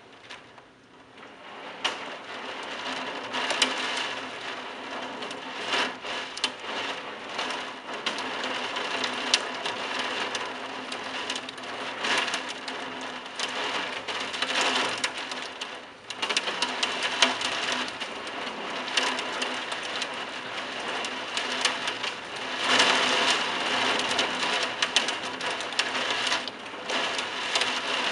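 Heavy thunderstorm downpour: dense rain pouring and pattering, with many close drop impacts. It is quiet for the first two seconds, then comes on suddenly, eases briefly about halfway through and grows heavier again near the end.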